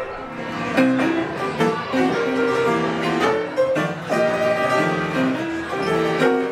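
An upright piano played by hand: a quick tune of stepping melody notes over chords.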